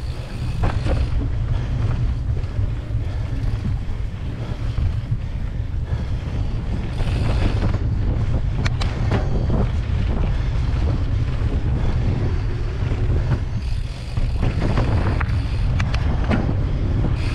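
A Giant Trance 3 mountain bike rolling along dirt singletrack, with its tyre noise under a constant low wind rumble on the microphone. Occasional sharp clicks and rattles.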